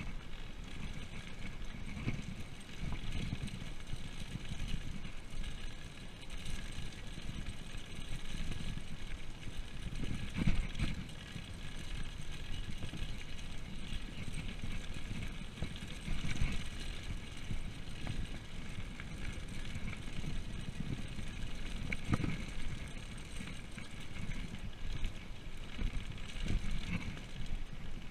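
Mountain bike rolling downhill on a rough road: a steady rumble of tyres and wind buffeting the microphone, with uneven bumps throughout.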